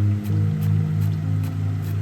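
Background music: held notes over a low, pulsing bass.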